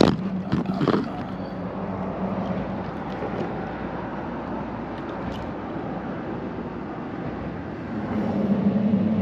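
A steady low engine hum under a rushing noise, growing louder about eight seconds in. There are a couple of sharp knocks in the first second.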